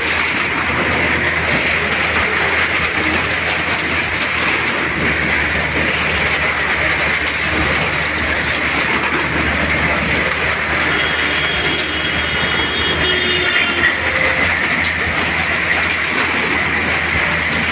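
Cars driving round the vertical wooden wall of a well-of-death pit: a loud, continuous rumble of engines and tyres on the planks, echoing in the drum. A thin high whine joins in for a few seconds past the middle.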